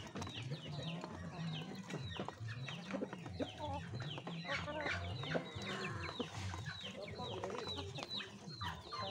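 Young Muscovy ducks feeding from a trough, their bills tapping and pecking at the feed, with many quick high peeping calls that fall in pitch, several a second.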